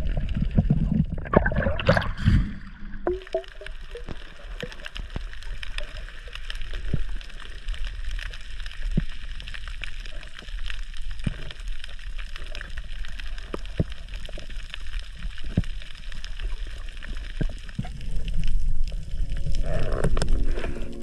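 Underwater sound picked up by a GoPro in its housing while freediving: water gurgling and sloshing against the camera, with a loud rush of bubbling about two seconds in. After that comes a steady hiss with many short, sharp clicks.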